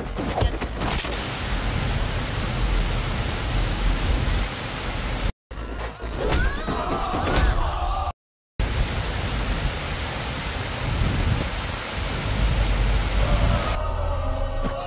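Steady, loud hiss-like noise with a low rumble underneath, cut off briefly twice.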